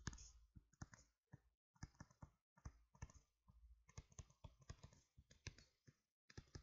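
Faint, irregular tapping and clicking of a stylus tip on a tablet screen as a formula is handwritten, several taps a second with short pauses between strokes.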